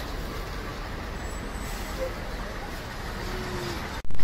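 Steady outdoor city noise with the hiss and rumble of distant road traffic and a few faint voices. Near the end it cuts out for an instant and returns much louder.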